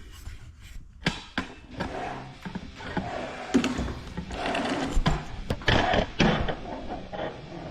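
Handling noise: a run of sharp knocks and clatters mixed with scraping and rustling, busiest and loudest in the middle stretch.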